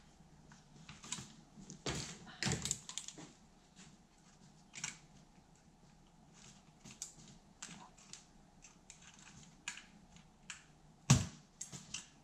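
Pliers clicking and tapping as they work thin wires: irregular small clicks, with a sharper knock near the end.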